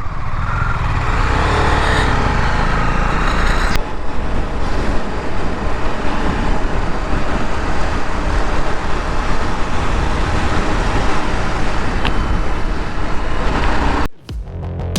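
Motorcycle on the move in city traffic: steady engine, road and traffic noise. It cuts out about 14 seconds in and gives way to electronic music with a beat.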